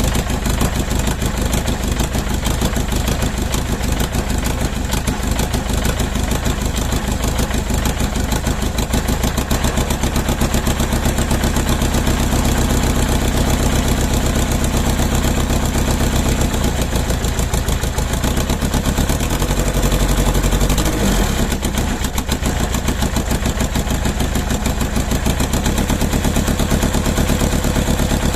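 Mercedes OM611 four-cylinder common-rail diesel engine running out of the car on its factory Bosch ECU, idling with a loud, rough clatter, with one injector bad. About twenty seconds in, the engine note briefly rises and gets louder, then settles back.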